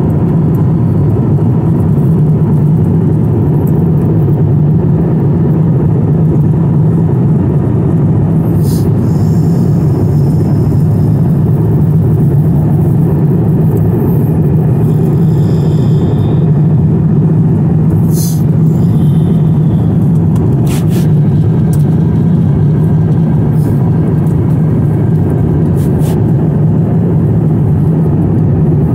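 Steady roar inside the cabin of an Airbus A350 airliner in cruise: engine and airflow noise, with a few faint clicks.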